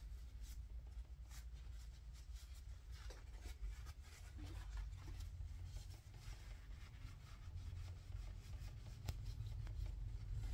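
Faint scratchy rubbing and small clicks of lapping compound being wiped off the scope rings, over a steady low hum.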